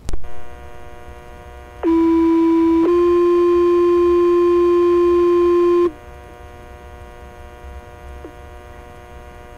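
Two-tone fire pager alert received on a Baofeng UV-5R scanner: a steady tone for about a second, then a slightly higher tone held for about three seconds, over a constant radio hum that opens with a click. It is the tone page that alerts firefighters ahead of a dispatch message.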